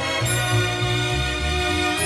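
Instrumental music with sustained notes over a moving bass line.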